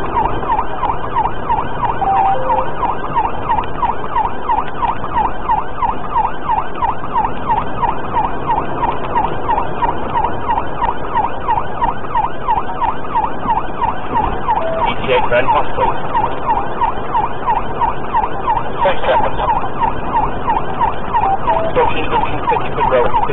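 Police car siren sounding a rapid yelp, a quick up-and-down sweep about three times a second, over steady engine and road noise, heard from inside the pursuing patrol car.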